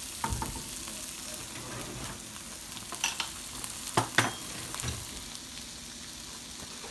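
Diced onion and green bell pepper sizzling in a nonstick wok, with a few sharp knocks about three and four seconds in.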